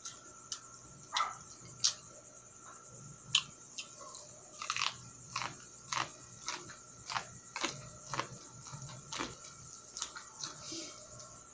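Biting kernels off a cooked ear of sweet corn and chewing close to the microphone: crisp crunches and wet mouth sounds, a few scattered at first, then about two a second from about halfway in.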